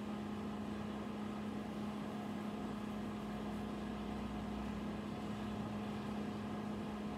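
Steady low hum over a faint hiss: room tone.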